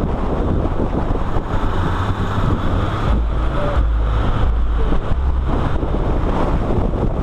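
Wind buffeting a camera mounted low on the outside of a car driving at speed, over the car's steady running and road noise.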